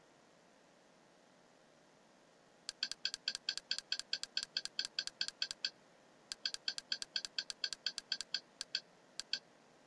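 Kodi's menu-navigation tick sounds: a rapid run of short, identical clicks, about seven a second, as the cursor scrolls through a list. After a brief pause a second run follows, slowing to a few separate ticks near the end.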